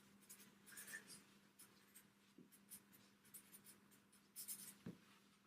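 Faint scratching of a pen drawing, a run of short irregular strokes, over a faint steady hum.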